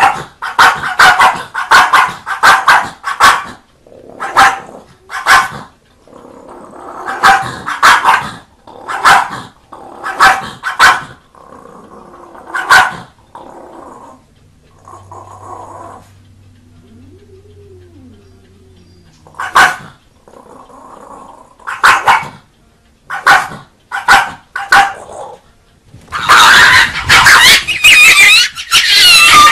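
A dog barking in quick runs of short, sharp barks, separated by quieter gaps. Near the end a louder, continuous noisy sound with wavering pitch takes over.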